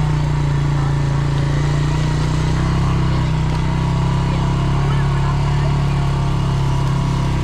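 A vehicle engine running steadily, its low hum holding one pitch throughout.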